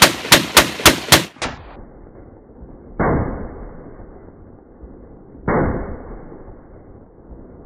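A semi-automatic Browning M1917A1 water-cooled machine gun in .30-06 fired in a quick string of five sharp shots in just over a second, each trigger pull a separate report. Two further duller bangs with long decaying tails follow about three and five and a half seconds in.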